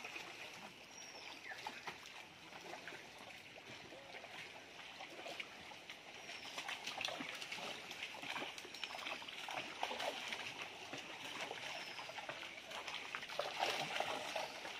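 Pond water sloshing and splashing as a net is hauled through it by men wading. It grows louder near the end as fish thrash at the surface inside the closing net.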